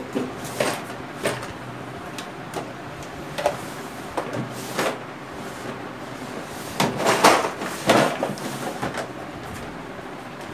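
Marker pen writing on a whiteboard: a series of short, irregular strokes and scratches, busiest about seven to eight seconds in.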